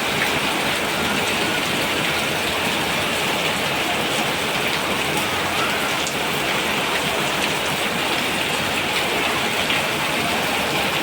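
Rain falling steadily: an even, unbroken hiss of many drops, with faint scattered ticks of single drops.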